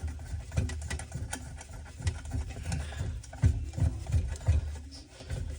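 Irregular knocks, clicks and rubbing from hands and a tool working on the faucet's fittings.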